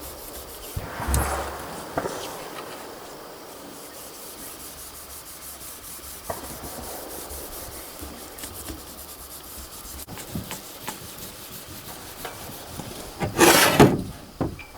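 Continuous rubbing on the steel rifle barrel as Oxpho-Blue cold bluing is worked onto the metal, with one louder scraping stroke near the end.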